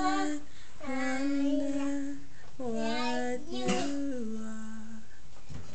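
Toddler singing long drawn-out notes without clear words: three sung phrases, the first ending just after the start, the second about a second in, and the third around the middle, which steps down in pitch near its end.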